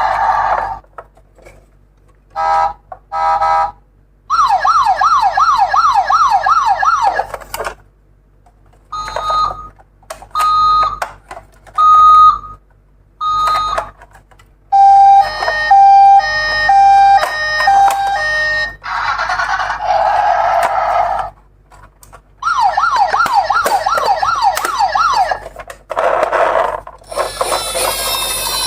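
Electronic toy-style siren sounds cycling through several patterns with short gaps between them. There is a fast rising-and-falling yelp of about four sweeps a second, a string of single beeps about a second apart, and a high-low two-tone alternation. A few bursts of hiss come in between.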